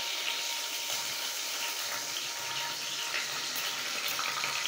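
Mustard, cumin and fenugreek seeds and fresh curry leaves sizzling steadily in hot oil in a kadai, the tempering (tadka) frying.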